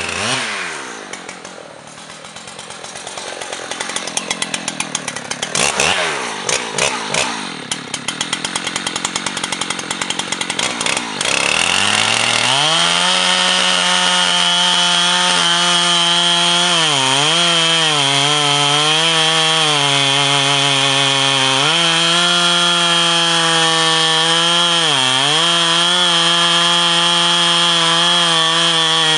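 Husqvarna 3120 two-stroke chainsaw with a 50-inch bar cutting the back cut in a large pine trunk. For the first ten seconds or so its revs drop and climb unevenly. From about eleven seconds in it runs at steady high revs in the cut, its pitch dipping briefly about four times as it labours under load.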